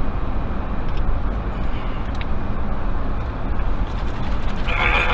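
Steady road and engine noise inside a moving Jeep's cabin, a low rumble throughout, with a brief higher sound starting near the end.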